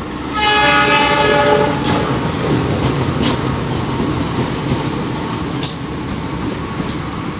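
A CC 201 diesel-electric locomotive sounds its horn in one blast of about a second and a half, then runs past at close range with a steady engine rumble and a few sharp clicks of its wheels over the rail joints.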